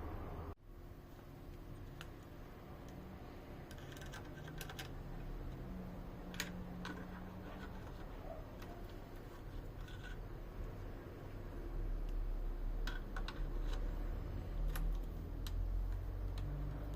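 Sparse light clicks and taps of hand work on rifle parts, one at a time and in small clusters, over a low hum that grows louder about two-thirds of the way through.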